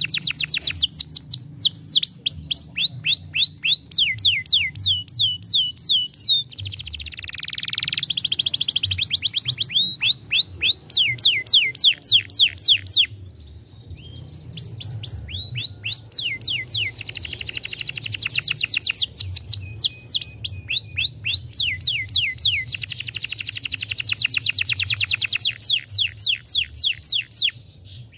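Domestic canary singing long, fast trills of repeated down-sweeping whistled notes, switching to a new trill every second or two, with a brief lull about halfway through.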